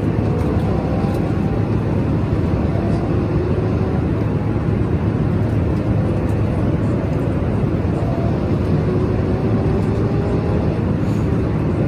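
Steady airliner cabin noise in cruise, the even rush of the engines and airflow, with faint tones that rise slowly in pitch twice.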